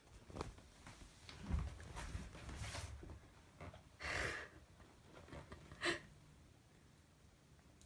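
Soft thumps and fabric rustling as a cat paws at and pushes into a fleece blanket draped over a wooden chair. A short breathy burst comes about four seconds in and a sharp tap near six seconds.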